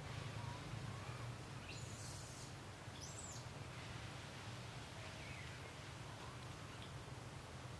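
Faint outdoor ambience: a steady low hum under background noise, with scattered faint bird calls and two brief high chirps about two and three seconds in.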